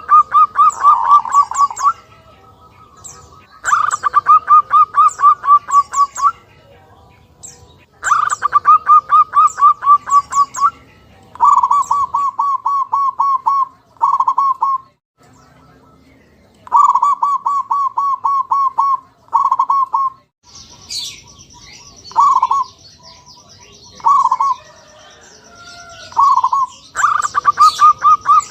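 Zebra dove (perkutut) cooing: repeated phrases of rapid staccato coo notes, each phrase lasting about one to two and a half seconds, with short pauses between. Fainter high chirps sound above them, and a steady high whine comes in about two-thirds of the way through.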